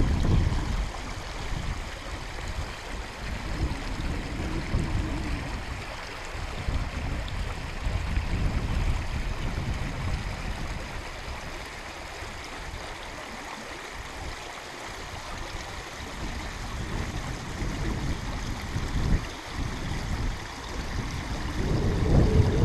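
Small stream running steadily, with gusts of wind buffeting the microphone now and then.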